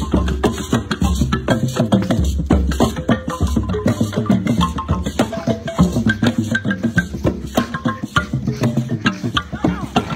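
Background music with a quick, dense percussive beat and short pitched notes.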